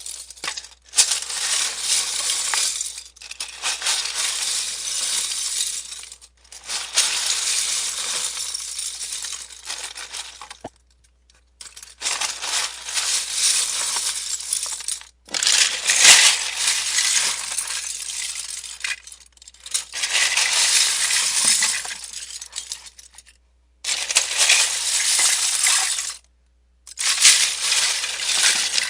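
Plastic Lego bricks clattering and clicking as they are handled and built, in a string of bursts a few seconds long with short silent gaps between them.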